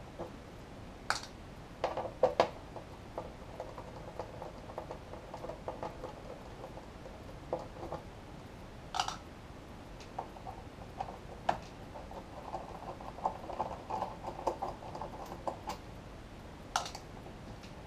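A screwdriver backing out the screws of a Behringer Ultragain Pro MIC2200's metal cover: stretches of fine scratchy ticking as the screws turn, with a few sharp metallic clicks.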